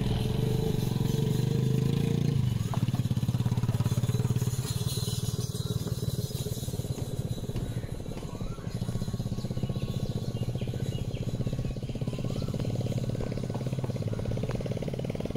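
Motorcycle engine running steadily, with an even rapid pulse. It is louder for the first couple of seconds, then settles a little lower.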